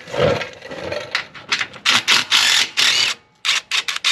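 Ratchet wrench clicking in a run of quick strokes, working a bolt loose to free the brake line, after a single knock at the start.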